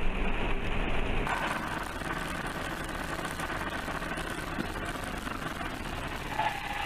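Dashcam audio of a vehicle driving: steady engine and road noise from inside the cab. About a second in, the heavy low rumble gives way to a thinner, hissy road noise, with no clear crash impact heard.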